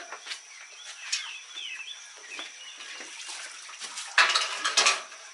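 Light clinks and clatter of a metal scalding pot, then a loud splash of water about four seconds in. Chickens chirp faintly in the background.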